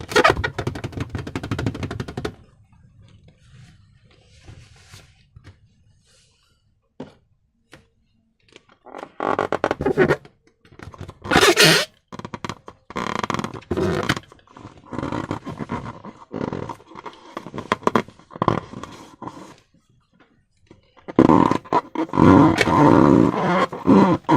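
Slime and slime-filled balloons being squeezed and handled: sticky, wet squelches in irregular bursts, with quieter stretches between.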